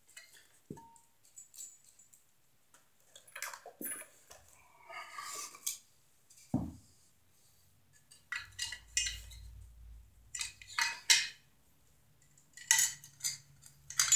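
Steel electrical box and MC cable connector clinking and rattling as they are handled and the connector is pushed into the box's knockout, with one dull knock about six and a half seconds in.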